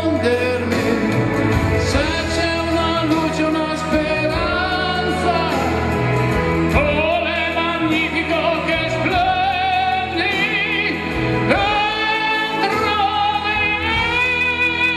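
A voice singing sustained, wavering notes over an instrumental backing track.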